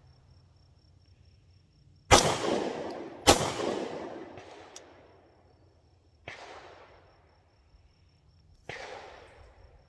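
Two pistol shots from a prototype pistol, about a second apart, each ringing out with a long echo. The pistol then fails to extract the spent case. Two fainter bangs with echo follow, about six and nine seconds in.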